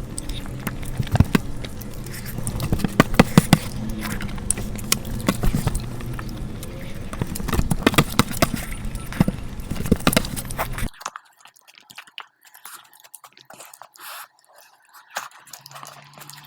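Close-miked eating: chewing with many sharp, crisp clicks and smacks. About eleven seconds in, the steady background cuts out abruptly, leaving only sparse faint clicks.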